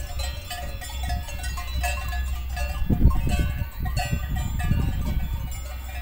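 Cowbells on grazing cattle clanking irregularly, a scatter of short ringing tones, over a steady low rumble that grows louder about halfway through.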